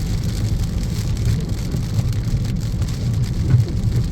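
Rain falling on a moving car, over a steady low rumble of engine and road noise.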